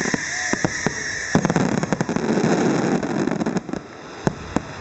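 Aerial fireworks going off. A high fizzing hiss and quick bangs run for about the first second and a half. Dense crackling follows, then fades, and two separate sharp bangs come near the end.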